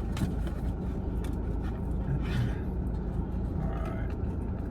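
Steady low rumble of an idling vehicle, with a few faint clicks and rustles as a corn dog is dipped in sauce.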